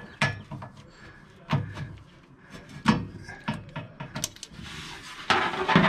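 Hand tools clicking and clanking on metal, a socket ratchet among them, while spark plugs are removed from a Chevy 396 big-block. Scattered single clicks and knocks, with a denser rattling burst near the end.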